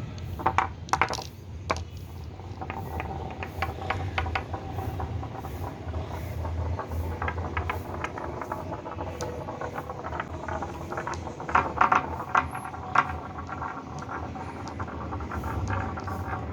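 Marbles rolling along a marble run track with a steady rattling rumble, broken by bursts of sharp clicks as they knock against each other and the track walls, once about a second in and again near the twelve-second mark.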